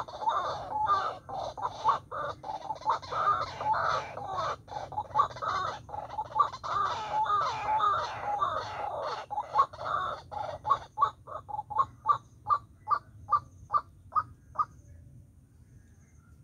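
White-breasted waterhen calling: a fast run of harsh croaking notes that settles into a series of evenly spaced single notes, about three a second, which stop shortly before the end.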